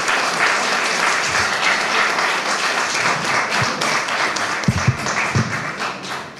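Audience applauding: dense, steady clapping from a roomful of people that dies away near the end.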